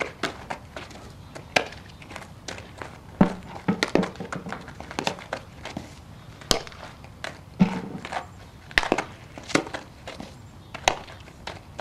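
Softballs smacking into leather gloves and shoes scuffing on infield dirt during a fielding and throwing drill: a string of sharp smacks at irregular spacing, some with a duller thump.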